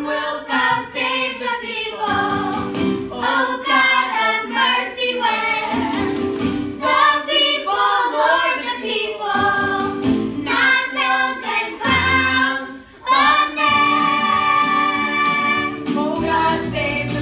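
Children's chorus singing together, with a short break about twelve seconds in followed by a long held note.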